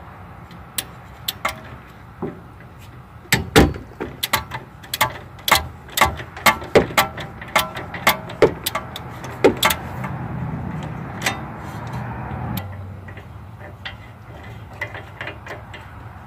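Ratchet wrench clicking in irregular runs as the nut on the lower ball joint stud of a Toyota Tacoma is backed off, over a steady low hum.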